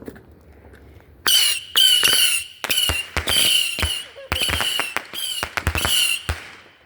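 Small missile fireworks shooting off in quick succession: about eight shrill whistles with sharp crackling snaps, from about a second in until near the end.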